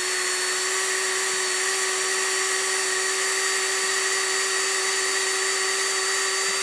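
Electric drill boring a hole through a wooden board, its motor running at a steady, unchanging pitch.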